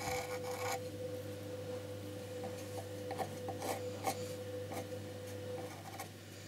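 Pencil sketching on the painted surface of a wooden box: scratchy rubbing strokes, a dense run in the first second, then short separate strokes. A steady faint tone runs underneath and stops near the end.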